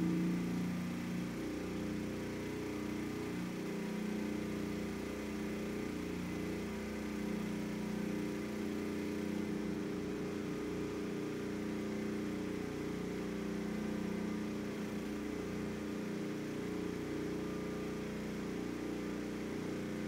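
Westinghouse WPRO8500 portable generator's single-cylinder engine running steadily under a heavy resistive load (electric oven plus a stovetop burner), its governor holding output near 60 Hz as the burner comes on.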